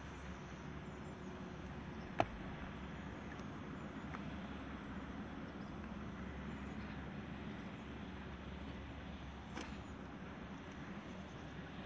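Steady low outdoor background rumble with no speech. A single sharp click sounds about two seconds in, and a fainter one comes near the end.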